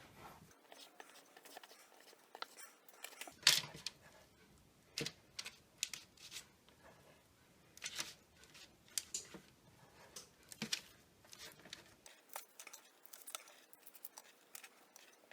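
A roll of cinnamon-bun dough being cut into rolls and the rolls set down on a parchment-lined cookie sheet. It comes as scattered soft cuts, taps, scrapes and paper crinkles, the loudest about three and a half seconds in.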